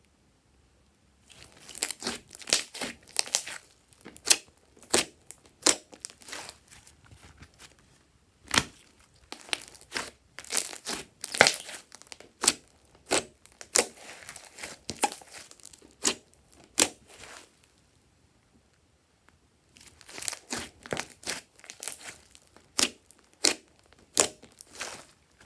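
Hands kneading and poking glossy slime, with a quick string of sharp clicks and pops as it is squeezed and stretched. The clicks stop for about two seconds past the middle, then start again.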